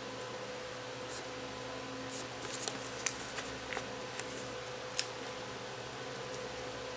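A sheet of paper being folded and creased by hand: scattered short crinkles and crackles, bunched in the middle, over a steady background hum.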